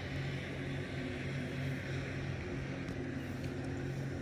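Steady drone of a distant engine holding one constant pitch.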